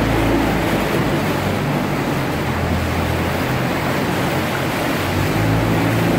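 A small boat's engine running slowly, its steady low hum easing back for a few seconds mid-way and picking up again near the end, under a constant wash of water splashing and lapping around the hull.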